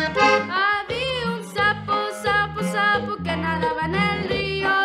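Hohner diatonic button accordion playing a lively tune, its low notes alternating in a steady beat under the melody, with a girl's voice singing along.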